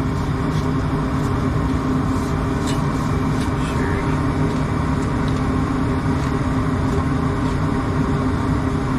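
Gas furnace running steadily with its burner lit, a constant mechanical hum and rush of air; it is firing normally now that the fried thermostat has been replaced.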